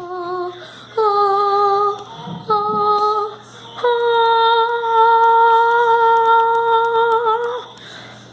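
A young girl's voice singing a few sustained notes with vibrato, the last one held for nearly four seconds.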